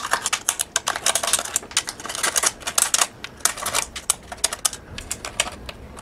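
Hand deburring tool's swivelling steel blade scraping around the edges of drilled holes in a metal enclosure panel, cutting off the burrs in quick, irregular strokes, several a second.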